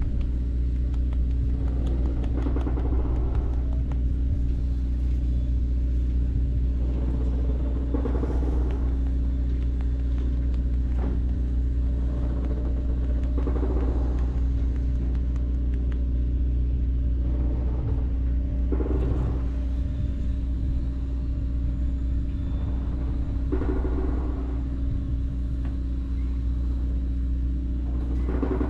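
A steady, low engine drone that holds one pitch, with a short swell of noise about every five seconds.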